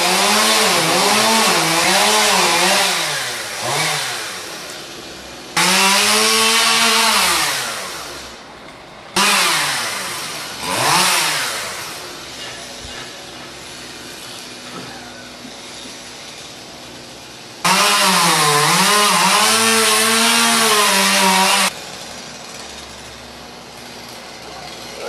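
Stihl two-stroke chainsaw cutting through logs: revved to full speed in several bursts, its pitch wavering up and down as the chain bites into the wood. It drops back to a steady idle between cuts, the longest idle lasting about five seconds in the middle.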